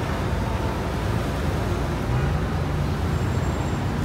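Steady road traffic noise from a busy city street: the low, even running of many cars, with one engine note rising briefly about halfway through.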